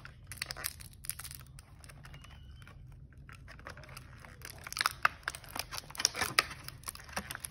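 Clear plastic blister packaging crinkling and crackling as small toy accessories are worked out of it by hand. The crackles are sparse at first and come thick and fast over the last few seconds.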